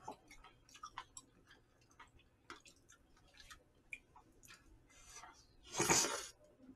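Eating sounds: small scattered clicks and chewing noises, then about six seconds in a single loud slurp as a mouthful of jjamppong noodles is sucked in.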